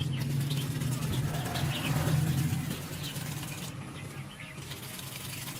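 Small birds chirping in short high notes over a steady low hum.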